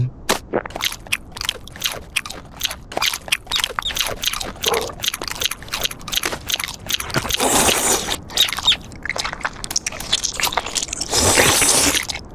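Crunchy chewing foley of a cartoon seal eating: a run of quick crunches and bites, with two longer, denser crunching stretches, one about seven seconds in and one near the end.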